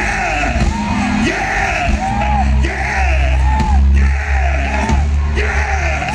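Live R&B band playing loud with a heavy steady bass, and a singer's voice riding over it in bending ad-lib phrases.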